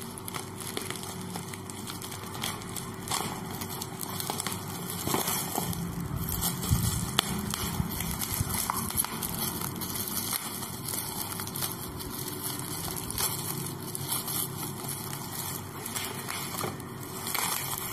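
Scissors snipping and slicing through a parcel's black plastic wrap and packing tape, with the plastic crinkling and rustling as it is handled. Irregular small clicks and crackles run on throughout.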